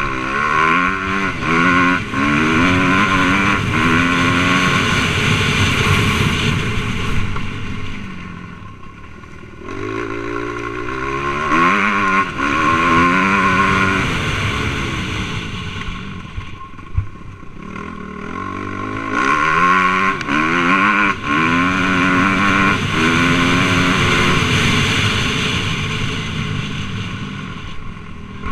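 Suzuki RM-Z250 four-stroke single-cylinder dirt bike engine revving hard and shifting up through the gears in three long pulls, with the throttle eased off between them.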